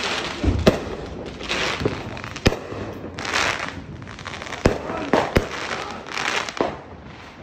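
Fireworks going off: several sharp bangs, the loudest about a second in, at two and a half seconds and twice around five seconds, between stretches of crackling and hissing from the bursts.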